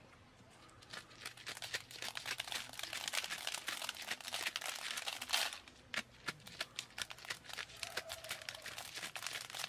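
Dried maize being shelled by hand: a dense crackling as kernels are twisted loose from the cob and rattle down into a wicker basket. It starts about a second in, eases off around the middle, then picks up again.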